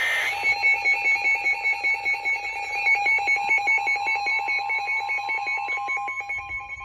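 Electronic weather-alert alarm beeping rapidly at two pitches. About three seconds in, a steady single tone joins it: the NOAA Weather Radio 1050 Hz warning alarm tone that signals a new warning is coming.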